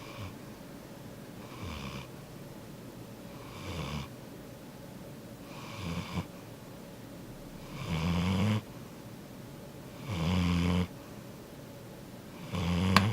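Yellow Labrador retriever snoring in its sleep, one snore about every two seconds, the later snores louder and longer. A single sharp click near the end.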